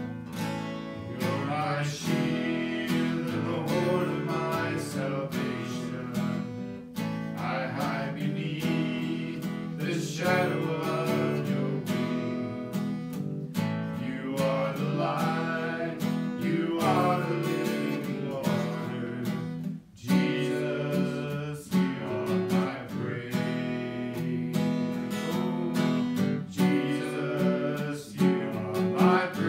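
Acoustic guitar strummed in a steady chord rhythm, with a brief break about twenty seconds in.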